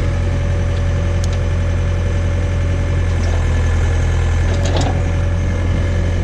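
John Deere 317 tractor engine running steadily at idle while driving the Davis D100 backhoe's hydraulics, with a faint steady whine and a few light clicks from the machine.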